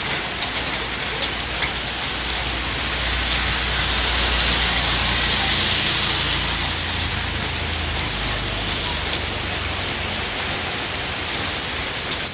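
Heavy monsoon rain falling steadily on a wet road and pavement: a dense hiss with scattered drop ticks, swelling louder a few seconds in and then easing back, with a low rumble beneath it in the middle.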